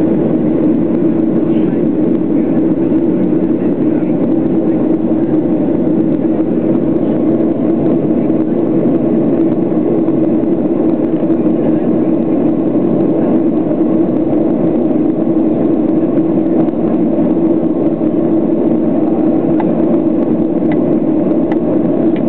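Steady cabin noise of a Boeing 737-700's CFM56-7B engines at taxi power, heard from inside the cabin over the wing. It is an even, unchanging hum with no spool-up.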